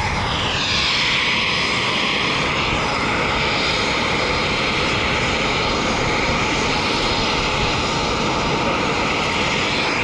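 Military jet engine running at close range: a loud, steady rush with a high whine.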